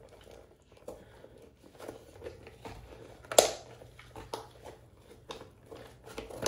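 Hands scrubbing a Billy Bass's rubber fish skin with a wet disinfecting wipe: a run of soft, irregular rubbing and crinkling scrapes, with one sharp knock about three and a half seconds in.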